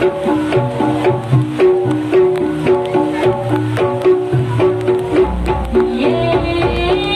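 Jaranan gamelan music: fast, repeating melodic patterns of short struck metal notes over steady drum strokes. A higher melodic line joins about six seconds in.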